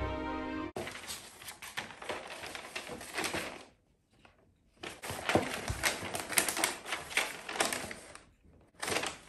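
Wrapping paper crinkling and rustling as it is folded and creased around a gift box, in two long stretches of dense crackle with a short pause about four seconds in and a brief rustle near the end. Background music stops just before the crinkling begins.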